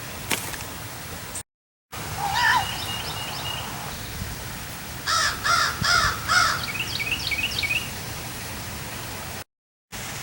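Wild birds calling outdoors: a run of four harsh, caw-like calls near the middle, with higher, wavy chirping calls before and after, over a steady hiss.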